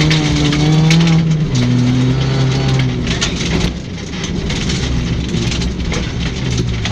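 Rally car engine running hard, its pitch shifting up and down over the first few seconds and then settling into a rougher noise, with many sharp clicks and knocks throughout.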